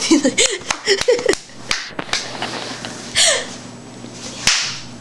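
Rough-and-tumble horseplay: short bursts of giggling over scuffling and handling noise, a falling squeal about three seconds in, and a sharp slap-like crack near the end.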